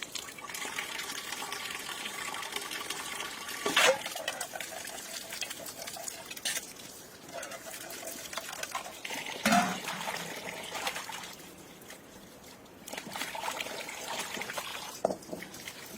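Water trickling steadily, with a few short knocks.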